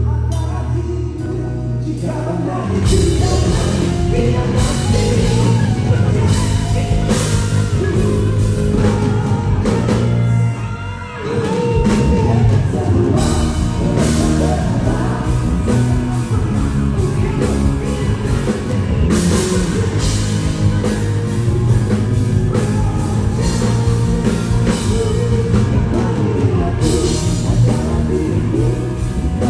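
A rock band playing a song with a sung vocal, drums and guitar. The music thins out and dips briefly about ten seconds in, then the full band comes back in.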